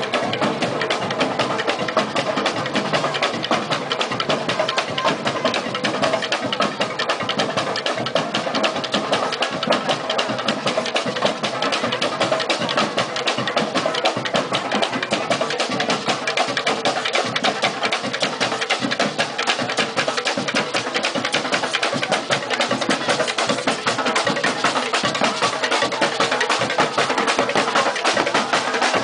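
Carnival street percussion band of marching drummers playing a fast, dense, unbroken drum rhythm.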